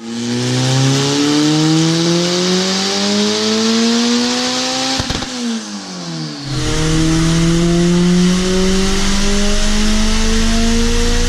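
Turbocharged Honda four-cylinder car accelerating hard at full throttle, its engine pitch climbing through one gear, dropping at a gear change about five seconds in, then climbing again in the next gear.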